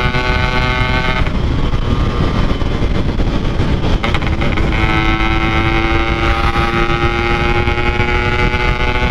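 Yamaha RX-King's 135cc single-cylinder two-stroke engine running through a Packing Power aftermarket exhaust while riding at a steady pace, over a constant low road and wind rumble. About a second in, the engine's steady note fades away, then comes back steady around five seconds in.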